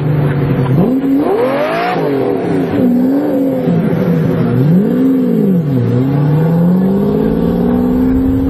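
Car engine revving, its pitch swinging up and down four times in quick blips, then climbing steadily and holding high revs over the last few seconds.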